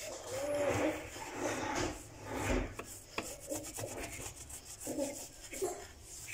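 A soapy green microfiber cloth is rubbed back and forth over the ribbed grill plate of a sandwich maker, making a scratchy rubbing that comes in uneven strokes.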